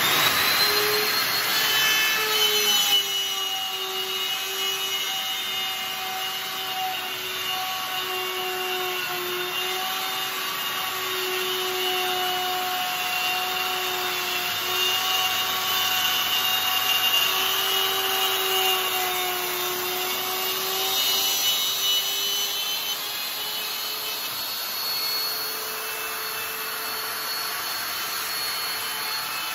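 Makita plunge router with an 8 mm straight cutting bit running under load, cutting a 10 mm deep rebate along a wooden snooker cushion capping. The motor whine is loudest for the first few seconds, then holds steady with small wavers in pitch as the bit works through the wood.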